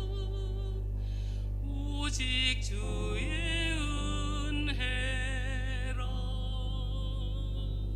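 Woman singing a solo hymn with vibrato, holding a long note in the middle of the phrase, over a steady low hum.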